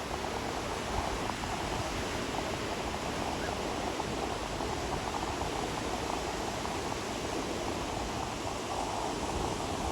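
Waves washing on a beach: a steady, even hiss of surf.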